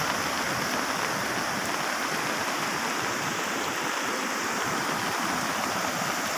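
Floodwater rushing steadily across a road, a continuous even rush of fast-flowing water.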